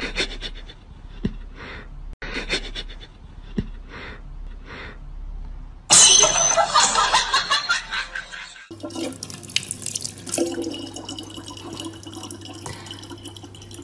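A regular background beat at first, then about six seconds in a loud, harsh noisy burst lasting nearly three seconds. From about nine seconds, water runs in a thin stream from a tap into a plastic water bottle, over a steady low hum.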